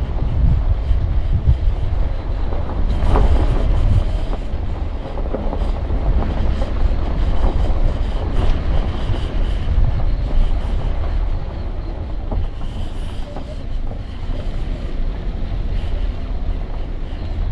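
Subaru XV driving on a rough mountain road: a steady low rumble of tyres and suspension, with irregular knocks and rattles over the bumps.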